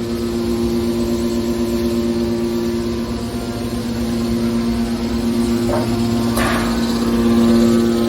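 Car shear baler running with a steady machine hum holding two constant tones, a short noisy burst about six and a half seconds in, and a slight swell near the end.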